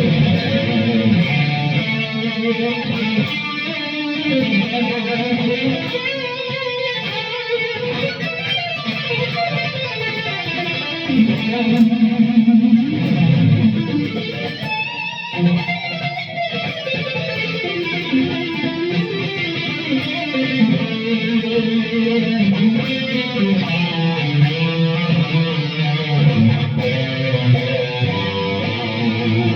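Ibanez K7 seven-string electric guitar played without a break through an amplified lead tone, with dense distorted notes and low riffing.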